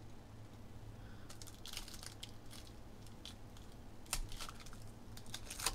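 Foil wrapper of a Clearly Donruss basketball card pack crinkling and being torn open by hand: faint crackling, with a couple of sharper snaps about four seconds in and near the end. A low steady hum lies underneath.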